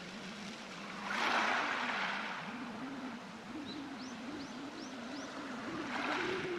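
Waves washing in over a beach of sea-worn pebbles, one surge about a second in and another near the end. In between, a bird gives four short rising chirps, over a low steady hum.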